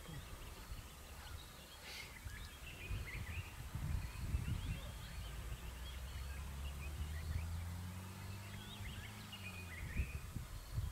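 Quiet bush ambience with small birds chirping on and off, and a low engine hum that swells and fades in the second half. A single sharp click about two seconds in.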